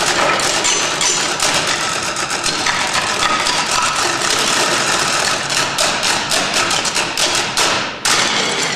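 Percussion ensemble playing rapid, dense strikes with sticks on wooden stools. About eight seconds in the playing thins out, a final loud unison hit lands, and applause begins.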